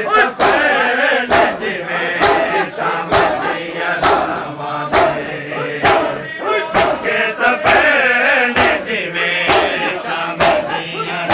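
Crowd of mourners doing matam, beating their chests together in a steady rhythm of roughly one strike a second, while many men's voices chant a noha (mourning lament) over it.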